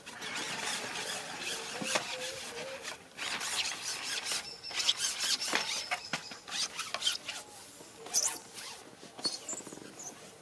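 A long carbon fishing pole being handled and shipped back, its sections sliding and rubbing against the hands and the seat box in an irregular scraping, with small knocks and a brief squeak about two seconds in.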